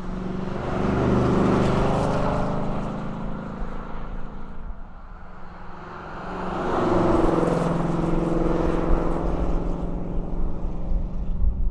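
Ford Mustang's 5.0-litre V8 engine and exhaust under way, the engine note shifting in pitch and swelling twice, about a second in and again from about six seconds in, with a dip between.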